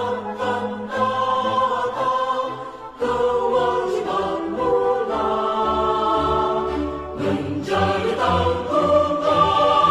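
Background music: a choir singing long held notes, dipping briefly about three seconds in before swelling back.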